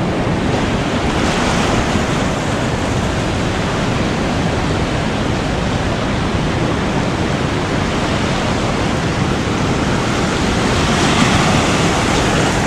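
Ocean surf breaking and washing in the shallows, a steady hiss with wind rumbling on the microphone; a wave rushes in a little louder near the end.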